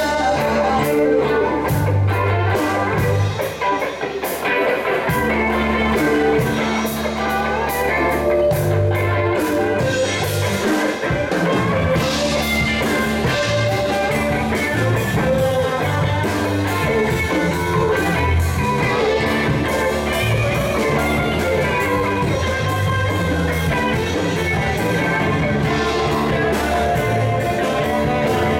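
Live band playing loud electric guitars, bass guitar and keyboard together, with a steady beat running through.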